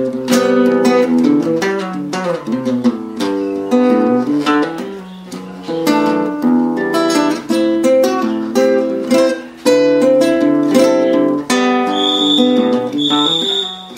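Solo acoustic guitar (violão) playing a piece of plucked notes and chords. Near the end a high steady tone sounds over it for about two seconds.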